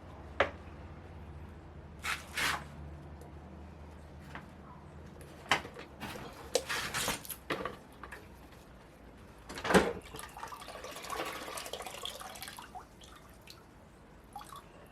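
Irregular clicks, knocks and scraping of hand work on a car's front end while the radiator is being removed, the loudest a sharp knock about ten seconds in, with a rustle of handled parts after it.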